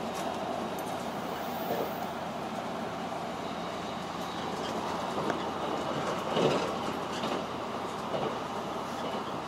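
Running noise of the Sonic limited express electric train heard from inside the carriage at speed: a steady rumble of wheels on rail, with a few louder clacks from the rail joints, the strongest about six and a half seconds in.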